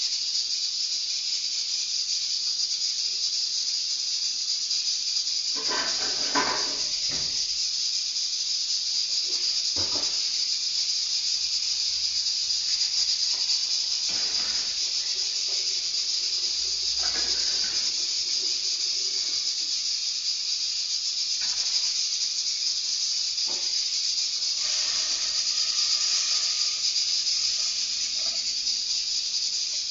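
Steady high hiss of cooking on a gas stove, with a few knocks and clatters of aluminium pots being set down and handled.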